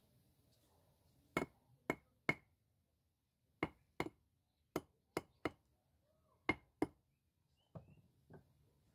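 Small hand hammer striking the top of a stone block laid in fresh mortar: about a dozen sharp knocks, each with a short clink, in uneven twos and threes, the last two softer.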